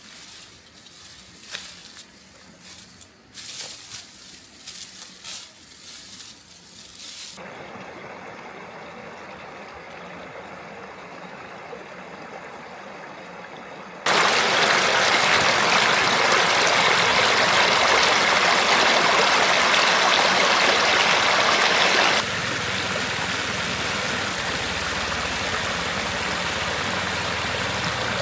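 Scattered rustling and clicks, then the steady rush of flowing stream water. The rush jumps much louder about halfway through and drops back a little about six seconds later.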